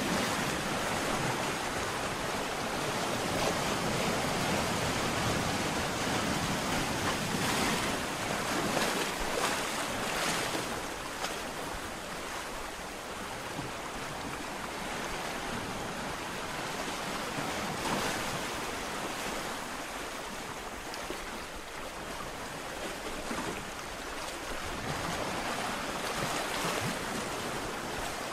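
Ocean surf: waves breaking and washing ashore in a continuous rushing noise that swells and eases, loudest through the first third.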